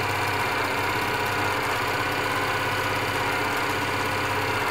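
Elna Air Electronic TSP sewing machine running steadily at speed, stitching a narrow zigzag through fabric.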